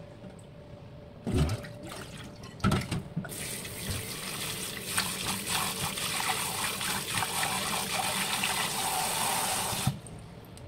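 Kitchen tap running into a bowl of shredded balloon flower root in a stainless steel sink while hands swish the strips. There are two splashes first, then the tap runs steadily for about seven seconds and shuts off near the end. The strips are being rinsed to wash out the salt and the root's bitterness.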